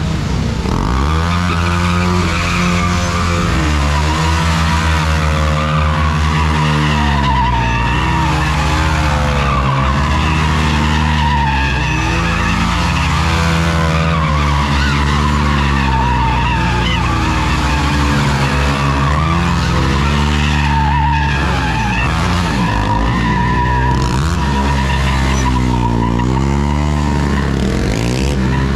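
Sport motorcycles revving hard and held at high revs, with rear tyres skidding and squealing on tarmac as they drift and spin in circles.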